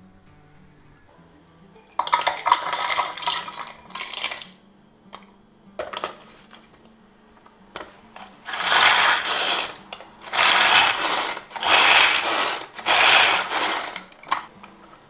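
Walnuts rattling and being chopped inside a hand-powered food chopper, in a series of short whirring bursts as it is worked again and again. The bursts grow longer and louder in the second half.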